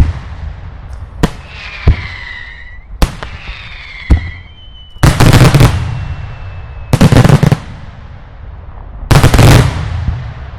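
Daylight fireworks going off: a few sharp single bangs with two falling whistles among them in the first half, then three short volleys of rapid-fire bangs about two seconds apart.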